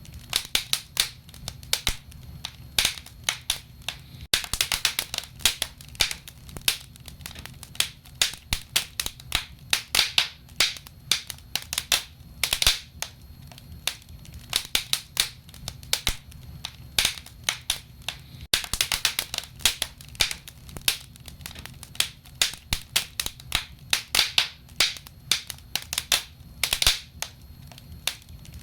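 Wood fire in a fireplace crackling, with irregular sharp pops and snaps, several a second, some much louder than others, over a low steady rumble.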